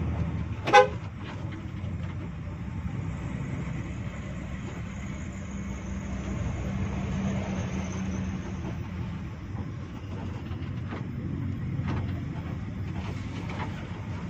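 A short, loud horn toot about a second in, over the steady low drone of a 2000 Hino RG1J bus's engine and road noise heard from inside the cabin.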